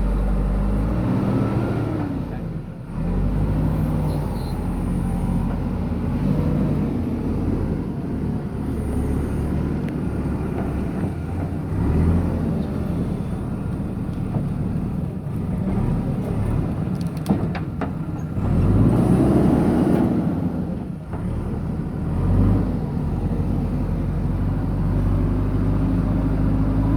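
JCB 3DX backhoe loader's diesel engine running under working load, its pitch rising and falling as the machine works. A single sharp clack sounds about two-thirds of the way through.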